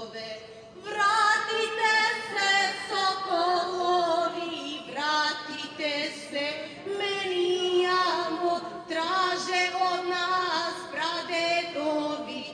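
A woman singing a slow song through public-address loudspeakers, with long held notes that waver in vibrato; she comes in louder about a second in.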